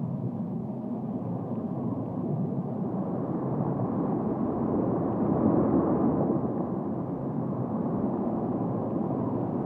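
Steady low rumble of a tin-mining dredge's drill churning up the seabed, swelling a little about halfway through.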